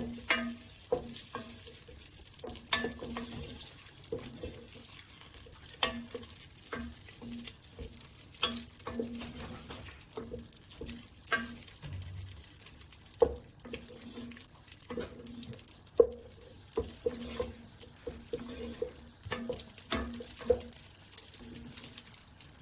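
Butter melting in a pan over low heat with a faint sizzle. A utensil stirs it, knocking and scraping lightly against the pan at irregular moments.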